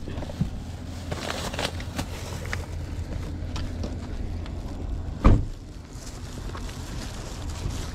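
A low steady rumble, with scattered light clicks and taps and one loud thump a little past five seconds in.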